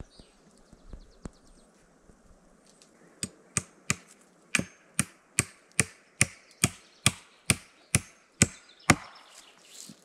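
Axe chopping wood: a steady run of about fourteen sharp blows, two to three a second, starting about three seconds in and stopping near the end.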